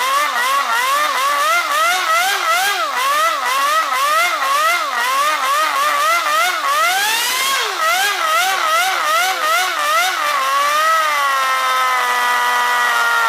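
Toyan Wankel rotary model engine revving in quick throttle blips, its pitch rising and falling about twice a second. About seven seconds in it revs up in one long climb and drops off sharply. After a few more blips it holds a steady high-speed tone that sags slowly.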